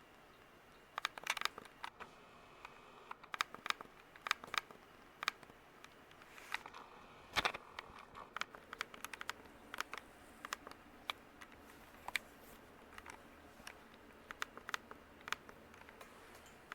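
1995 Craftmade 42-inch Decorative ceiling fan running on high speed: a faint steady motor hum with irregular sharp clicks and ticks, several a second, starting about a second in.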